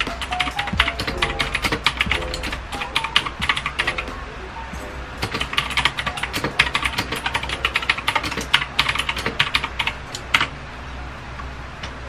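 Fast typing on a Magegee MK1 mechanical keyboard with blue switches: rapid, very clicky keystrokes that pause briefly about four seconds in, resume, and stop about ten seconds in.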